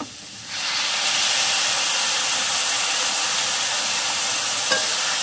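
Liquid poured from a bottle into a hot kadai of spiced pickle mixture in oil, which bursts into a loud, steady sizzling hiss with steam. The hiss rises sharply about half a second in and holds steady.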